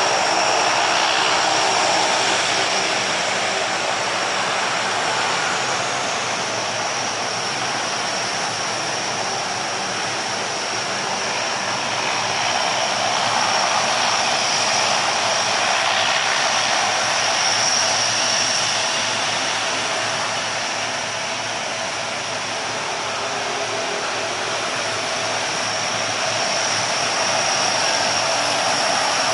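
The four Allison T56 turboprop engines of a Lockheed C-130 Hercules running as it taxis, a steady dense propeller and turbine noise with a constant high whine on top.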